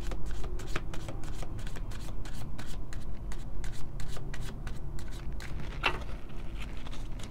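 A deck of round cardboard tea leaf oracle cards being shuffled by hand, the cards riffling and clicking against each other in a quick patter, with one sharper snap near the end.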